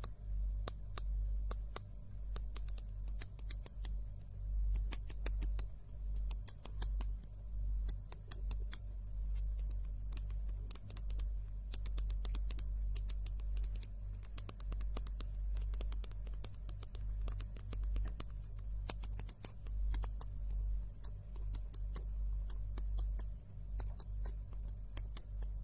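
Fingernails tapping on a plastic dual-tip marker held against the recorder's microphones, in quick irregular runs of sharp clicks.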